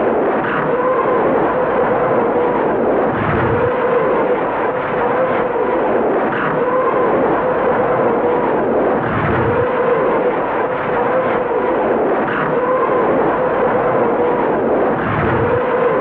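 Soviet Katyusha truck-mounted rocket launcher firing a salvo: a loud, continuous wavering howl of rockets, with low thuds every few seconds.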